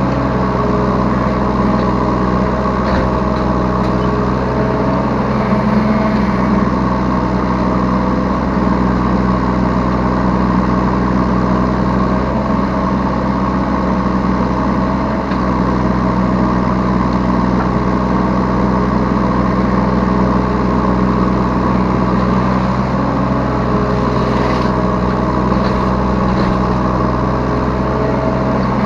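Yanmar B3 Sigma 3-tonne mini excavator's diesel engine running steadily under the operator, with faint clinks now and then.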